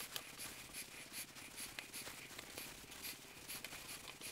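Faint, irregular light clicks and rubbing of apple slices being picked from a bowl and laid onto dough in a metal cake tin.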